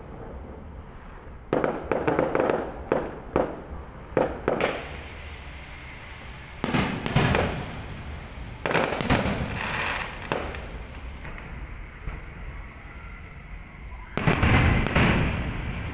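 Aerial firework shells bursting overhead. A quick run of sharp bangs comes about two to four seconds in, then single bigger booms about seven, nine and fourteen seconds in, each fading over a second or so.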